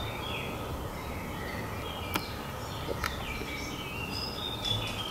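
Two sharp knocks about a second apart, like something small bouncing, over birds chirping outside.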